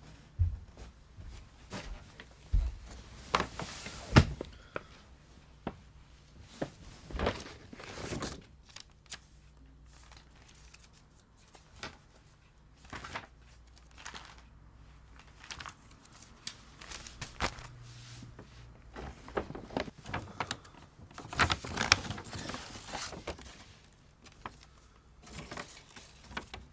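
Paper rustling and crinkling as a bundle of papers and other things are taken out and handled, with scattered knocks and bumps, the busiest stretches about 4 seconds in and again around two-thirds of the way through. A faint steady low hum sits underneath.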